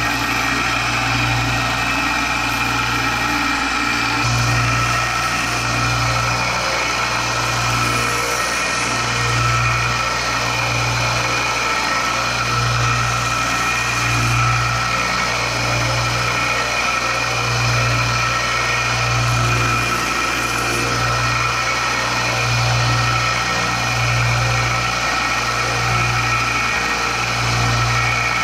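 Small benchtop belt sander running steadily while a piece of wood is held against the belt to sand its edges: a motor hum with a steady high whine and a slow, regular wobble in the hum about every second and a half.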